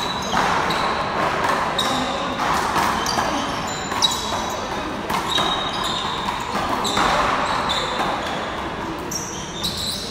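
Rubber handball smacking off the front wall and floor of an indoor one-wall handball court during a rally, a sharp hit every second or two ringing in the hall. Short high sneaker squeaks come between the hits.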